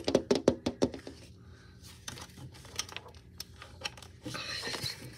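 Fingertips tapping and scraping against a mesh window screen: a quick run of clicks in the first second, then scattered taps, and a brief rustle near the end.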